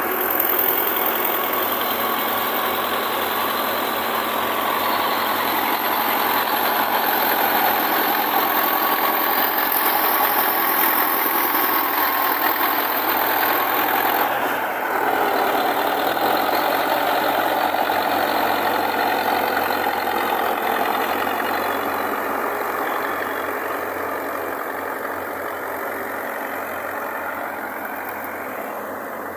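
Engine of heavy farm machinery running steadily, growing gradually fainter over the last third.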